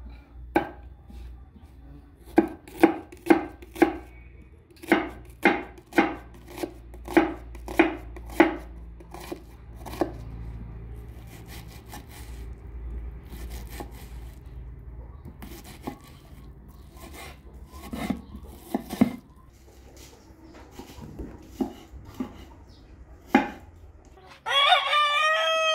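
Large kitchen knife chopping a red onion on a wooden cutting board: a run of sharp knocks, about two to three a second, then sparser cuts. Near the end a rooster crows.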